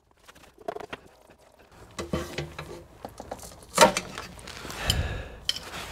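Metal tool prying and scraping at the small lower oil pan of a 2008 Toyota Prius engine, with metallic clicks, scrapes and one sharp knock a little past halfway, as the pan is worked free of the RTV silicone sealing it to the main oil pan.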